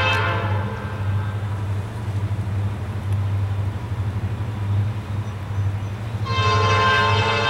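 Air horn of a Norfolk Southern SD40-2 diesel locomotive leading an approaching freight train. A long blast ends just after the start, leaving the steady low rumble of the approaching train, and the horn sounds again about six seconds in.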